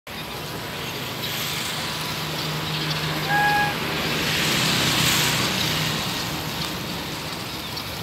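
A motor vehicle passing close by, its noise swelling and then fading, with a short horn beep about three seconds in.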